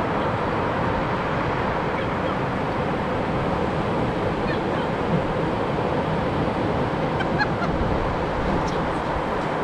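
Ocean surf washing steadily against the shore, a continuous rushing noise, with a few faint bird calls over it.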